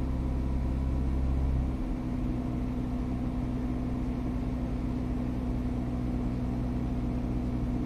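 2013 Ford EcoSport's diesel engine idling with the air conditioning running, heard inside the cabin: a steady hum with a low drone that eases off about two seconds in.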